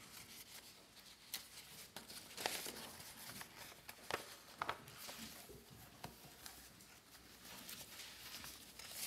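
Thin Bible pages being turned: faint, scattered paper rustles and flicks in a quiet room.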